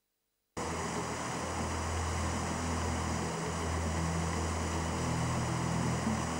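Silence for about half a second, then a sudden start of water pouring over a wide weir lip into a foaming pool: a steady rushing with a low steady drone beneath it.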